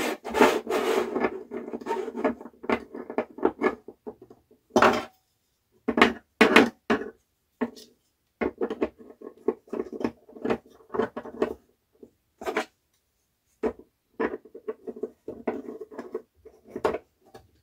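3D-printed plastic parts handled and set down on a tabletop as tower modules are placed around a frame: irregular clacks and knocks with light scraping, broken by short pauses.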